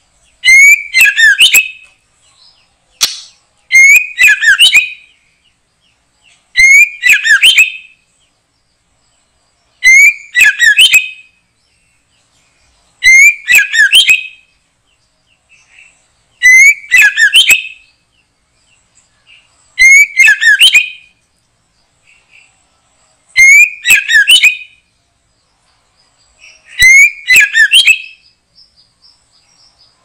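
A bird call used as a lure for trapping white-rumped shama, repeated nine times at even spacing about every three seconds, each phrase the same: a rising whistle followed by a quick burst of high chattering notes. The exact sameness of the repeats is typical of a looped recorded lure call.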